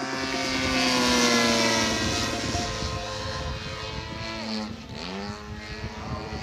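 Radio-controlled aerobatic airplane flying overhead, its motor and propeller sounding loudest about a second in as the pitch slowly falls. About five seconds in, the pitch dips sharply and climbs straight back up.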